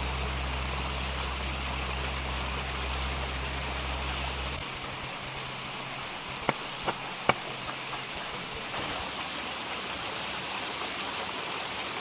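Steady rush of a waterfall's water, with three short sharp clicks about halfway through.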